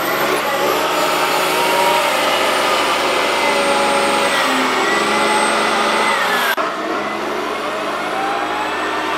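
A 2005 Caterpillar 938 wheel loader's diesel engine running, its pitch slowly rising and falling as it works. About six and a half seconds in, the sound breaks off abruptly and picks up again.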